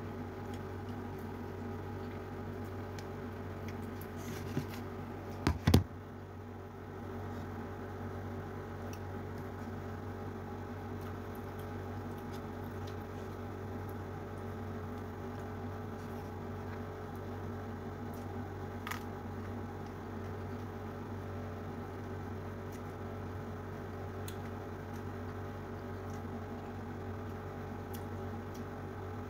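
Eating by hand: fingers squishing and mixing rice with pomfret in balado sauce on a plate, with small soft clicks and ticks, over a steady low hum. A few sharp knocks about five to six seconds in are the loudest sounds.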